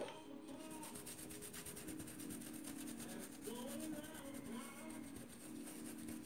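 Paintbrush wet with acetone scrubbed back and forth over a plastic stencil on a cloth, a soft steady rubbing as dried paint is worked off. A faint low hum runs underneath.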